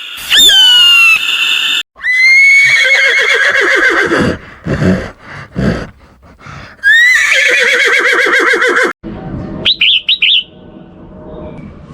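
Horse whinnying, in separate clips cut together: a short high squeal, then two long trembling whinnies that sink in pitch, followed by a few quick high chirps near the end.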